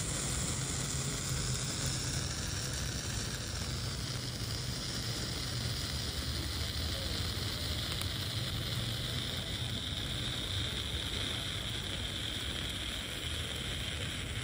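Birthday-candle spark fountain firework burning steadily: a continuous sizzling hiss of sparks that slowly drops in pitch over the first several seconds, over a steady low rumble.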